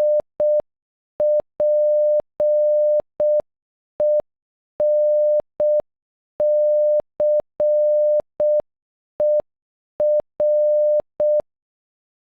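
Morse code beeps, a single steady mid-pitched tone keyed on and off, spelling "SPENCER" (... .--. . -. -.-. . .-.) at a slow, half-speed rate: short dots and dashes three times as long, with longer gaps between letters. The first letter's dots start just before, and the word finishes about a second before the end.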